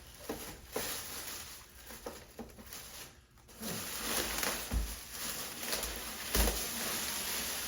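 Rustling and handling of packaging around a boxed espresso machine, plastic bags and styrofoam, with two dull thumps in the second half.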